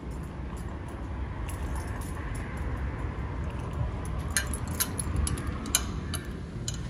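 Footsteps and camera handling over a steady low rumble, then a run of sharp clicks and clinks from about four seconds in as a glass door with metal bar handles is pushed open and walked through.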